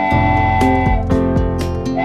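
Instrumental background music with plucked guitar notes and a held melody over a bass line.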